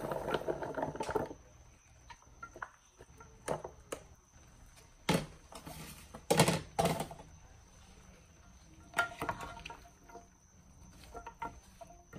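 Diced vegetables tipped from a plastic container into a nonstick pan, a quick patter of pieces landing, followed by a few sharp clatters of containers and dishes being set down. Toward the end a wooden spoon knocks and scrapes through the vegetables as they are stirred.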